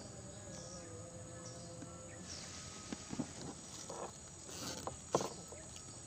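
Riverside ambience of insects buzzing steadily, with a few short knocks and clicks in the second half.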